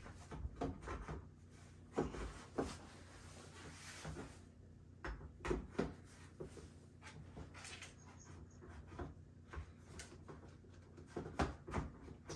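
Irregular knocks, clunks and rustles of a speaker column section being worked into the socket of a column-array speaker's base unit, with the loudest knocks about two seconds in, around the middle and near the end.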